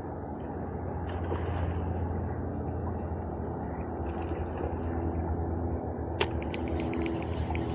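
Steady rushing of a flowing river. About six seconds in, a sharp click, then a quick run of light ticks.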